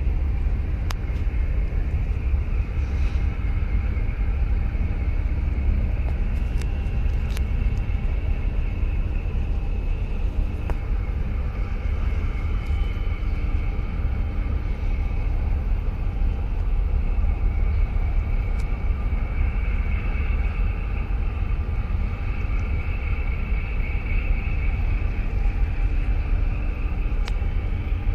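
Steady low rumble and faint hum of a large container ship's engines and machinery under way close by, mixed with wind buffeting the microphone. A few faint clicks are heard.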